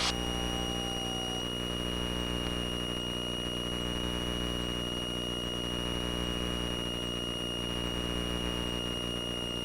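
Cessna 172's piston engine running steadily at reduced approach power, with a constant high whine over it and a faint short whine about a second in.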